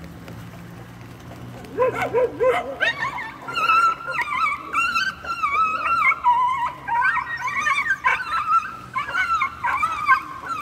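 A dog yelping and squealing in high, wavering cries, almost without pause, starting about two seconds in, as the pack pounces on it and bites.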